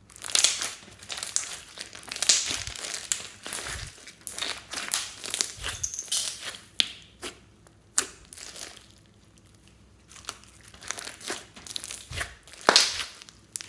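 Hands kneading and squeezing a large mass of glossy slime mixed with beads: a run of wet crackles and sharp clicking pops, with a plastic bag crinkling as it is peeled off the slime at first. It goes quiet for a moment past the middle, and a loud pop comes near the end.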